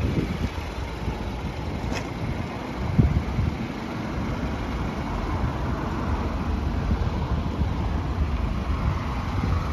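Wind buffeting a handheld phone's microphone, a rough, uneven low rumble, with a louder thump about three seconds in.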